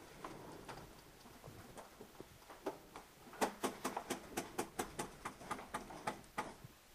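Paintball fire: a rapid string of sharp pops, about five a second, starting about halfway through and lasting some three seconds, with a few fainter scattered pops before it.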